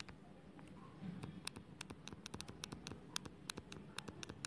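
Stylus tip tapping and scratching on a tablet's glass screen during handwriting: a faint, irregular patter of small clicks, several a second.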